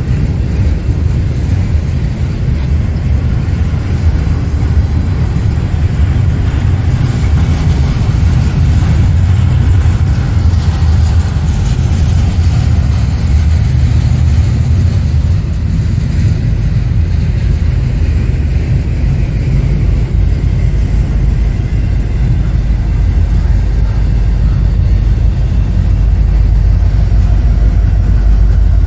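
Double-stack intermodal container train rolling past at close range, the wheels on the rails making a loud, steady low rumble. The rumble deepens near the end as a mid-train diesel locomotive draws near.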